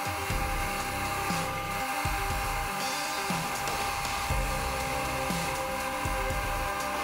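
Background music, with a small metal lathe running under it in a steady whine as it spins a workpiece.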